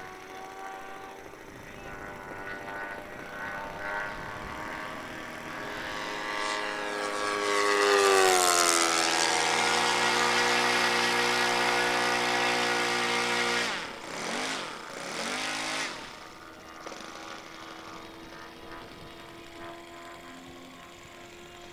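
Supercharged YS 91 FZ engine of a radio-controlled P-51 Mustang racer at full throttle on a low, fast pass. The engine note grows louder, drops in pitch as the plane passes about eight seconds in, and holds loud for several seconds. It then falls away suddenly, wavers, and settles into a quieter distant drone.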